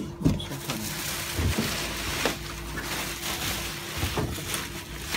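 Bubble wrap rustling and crinkling irregularly as hands handle a wrapped washing-machine door inside a cardboard box, with a bump against the box just after the start.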